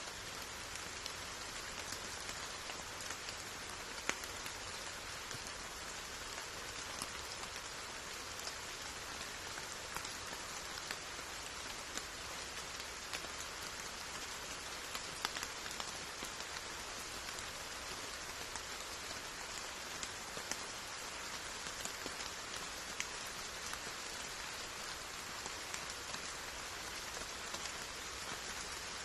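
Steady rain falling: an even hiss with single drops ticking sharply here and there, a few louder ones about four seconds in and again about halfway through.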